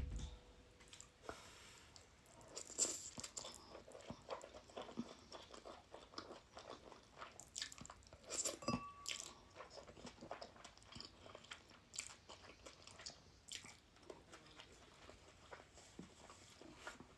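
A person chewing a mouthful of ramen noodles and egg, with soft, irregular wet clicks from the mouth.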